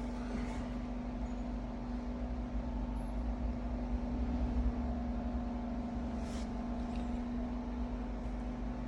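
Steady machine hum, one constant tone over a low rumble, with a faint brief scrape about six seconds in.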